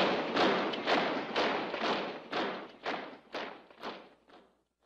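Marching boots stamping in step, about two thumps a second, fading out over a few seconds.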